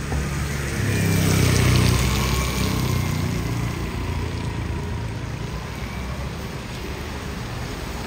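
Traffic on a wet street in the rain: a motor vehicle's engine rumbles past, loudest about two seconds in, then fades to a steadier engine hum. A steady hiss of rain and wet road runs beneath it.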